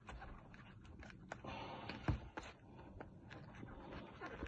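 Faint scattered clicks and light rustling as a cardboard perfume box and its plastic wrap are handled at close range.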